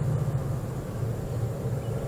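Distant, steady low rumble of three CL class diesel-electric locomotives working hard under power as they accelerate a freight train.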